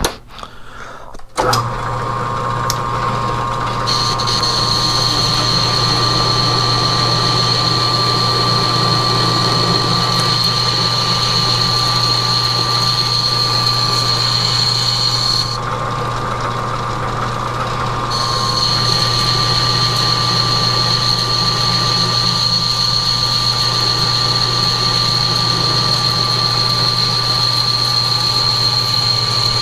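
Metal lathe starting up about a second and a half in and running steadily while a boring bar plunges into heat-treated 4140 steel. A high-pitched steady cutting tone sits over the motor hum; it breaks off for a couple of seconds in the middle and then resumes.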